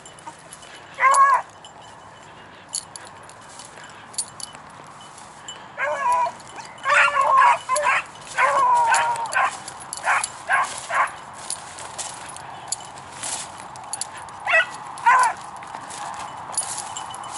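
Beagle pups baying in short, high, wavering calls, a few at a time with pauses between, the cry of hounds running a rabbit track. Brush crackles and rustles throughout.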